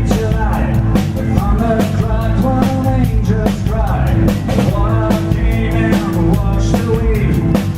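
A blues-rock band playing live, with a full drum kit keeping a steady beat under bass and bending melodic lines of guitar or voice.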